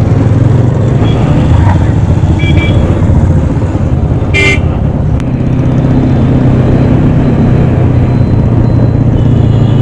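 Motorcycle engine running steadily while riding in traffic. A vehicle horn toots briefly about four and a half seconds in, with fainter short beeps at about two and a half seconds and near the end.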